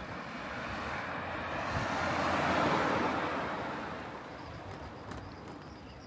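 A motor vehicle passes by: its tyre and engine noise rises, peaks about halfway through, and fades away.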